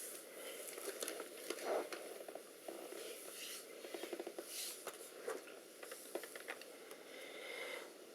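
Faint, irregular small clicks and scrapes of plastic as a laptop is handled and its keyboard is worked loose by pushing in the retaining tabs.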